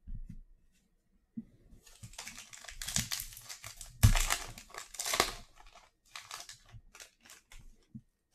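The foil wrapper of a 2020-21 Chronicles basketball card pack being torn open and crinkled by hand: a run of crackling rips over several seconds, loudest about four seconds in.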